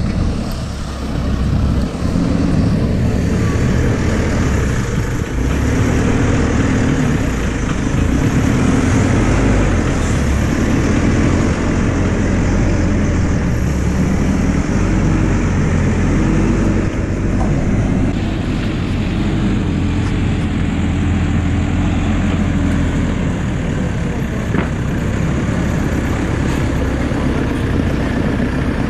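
JCB 4CX backhoe loader's diesel engine running, its pitch and level shifting every few seconds as it works.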